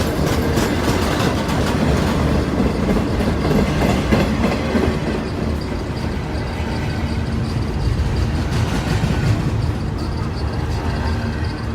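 Norfolk Southern freight train's cars rolling past, a steady heavy rumble with wheels clattering over the rail joints.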